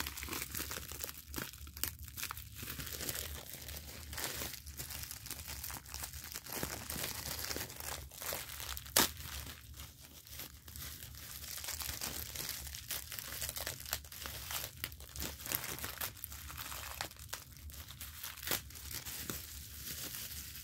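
Thin plastic bag crinkling and tearing as a vinyl toy figure is worked out of it, with scattered small clicks and one sharp click about nine seconds in.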